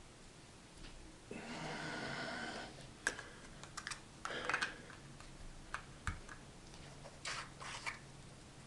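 Small hard parts being handled at a workbench. About a second in there is a scraping rub lasting a second and a half, followed by a scattered run of light clicks and taps, like plastic cups and pieces being set down and pressed together.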